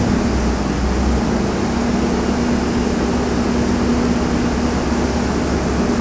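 A steady mechanical drone: a constant hum over a low rumble, with no breaks or changes.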